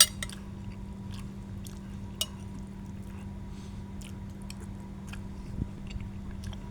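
A person chewing a mouthful of fish curry over a steady low hum. There are scattered soft ticks, a sharp click right at the start and another about two seconds in.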